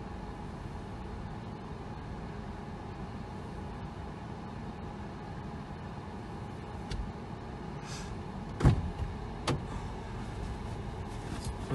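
Car driving slowly off-road through deep snow, heard from inside the cabin: a steady low rumble of engine and tyres. Two sharp knocks come near the end as the car jolts over the rough track.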